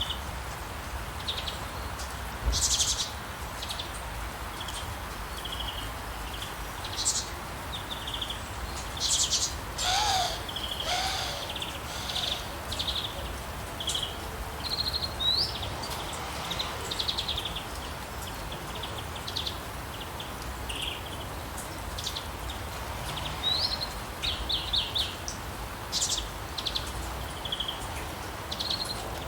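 Wild songbirds chirping and singing, with short high calls and trills coming at irregular intervals over a steady outdoor hiss. About ten seconds in there is a lower, downward-gliding call, twice in quick succession.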